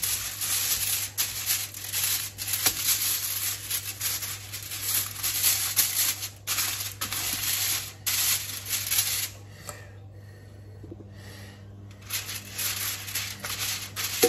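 Basting brush spreading oil over an aluminium-foil-lined baking tray: repeated scratchy brushing strokes with the foil crinkling, pausing for about two seconds past the middle.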